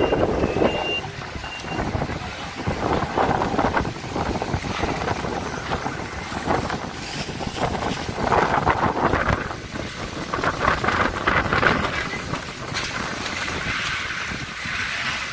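Dust-storm wind gusting hard and buffeting the microphone, swelling and falling throughout. A car horn sounds in the first couple of seconds.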